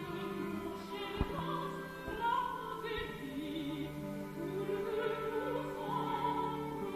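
Opera music: a singer holding long notes with a wide vibrato over an orchestra. A short click about a second in.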